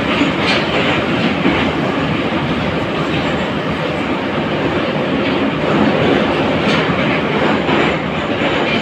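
Interior noise of an 81-541.2 metro car running at speed: a loud, steady rumble of wheels on rails and running gear, with a few faint clicks from the wheels.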